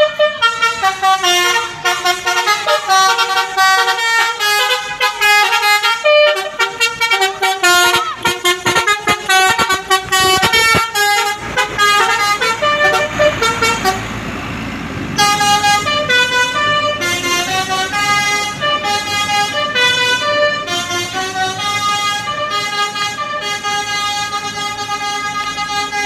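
A tour bus's Basuri multi-tone 'telolet' air horn playing a fast tune of quickly changing notes. About halfway through the tune breaks for a few seconds of engine noise as the bus passes close, then the horn melody resumes with longer, steadier notes.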